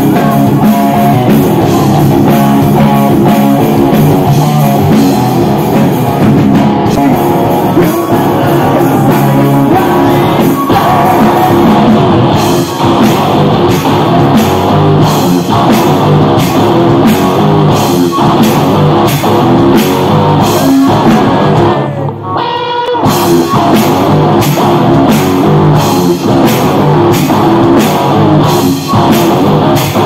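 A rock band playing live: loud distorted electric guitars over a drum kit, with a steady beat of drum hits coming in strongly about 12 seconds in and a short break about three-quarters of the way through.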